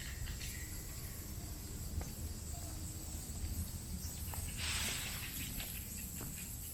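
Outdoor ambience: a steady high insect drone over a low rumble, with a short rustling hiss about four and a half seconds in.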